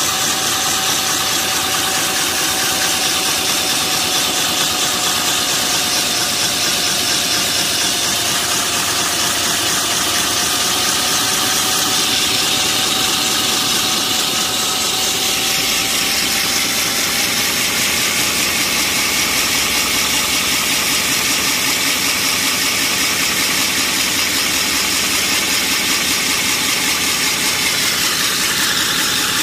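Stand-mounted core drill boring wet through asphalt with a large diamond core bit, its motor running steadily under load. A steady whine sits over the grinding noise and fades out a little past halfway.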